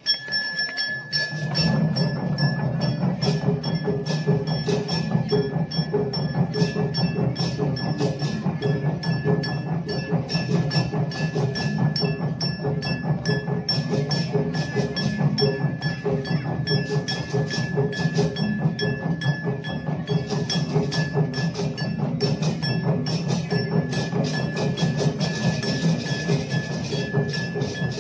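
Massed okokan, large Balinese wooden cattle bells swung by marching performers, clattering together in a dense, continuous hollow knocking that swells in over the first second or two. A thin steady high tone runs through it.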